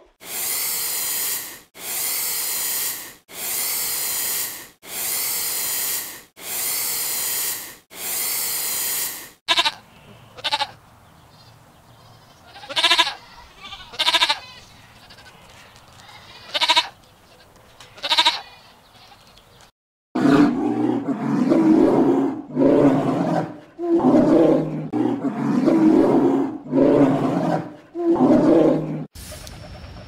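Farm animal calls: six long, evenly spaced calls, then scattered shorter calls, then from about twenty seconds in a fast run of lower-pitched calls.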